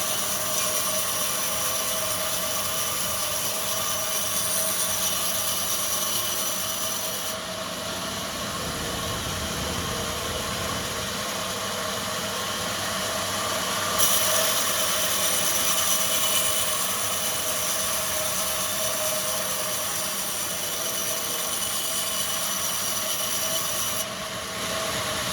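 Sawmill machinery running steadily, a continuous mechanical drone with a few steady tones. The high-pitched part of the noise changes abruptly about seven, fourteen and twenty-four seconds in.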